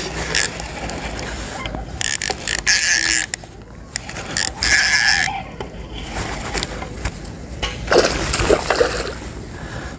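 Baitcasting reel being cranked as a hooked bass is reeled in, with splashing from the fish and rustling from handling the rod, in uneven bursts.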